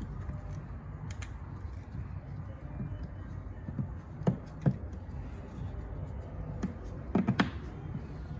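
A few scattered clicks and knocks from parts being handled, the loudest a pair about halfway through and a quick cluster near the end, over a steady low rumble.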